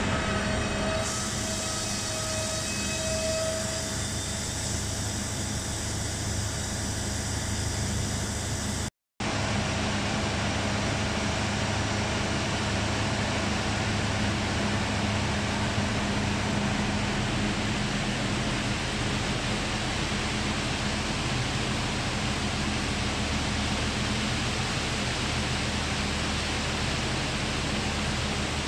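Diesel-hauled KTM intercity passenger train at a station platform, its engine humming steadily under a broad hiss. The sound cuts out for a moment about nine seconds in, and from then on the steady hiss of rain joins the train's hum.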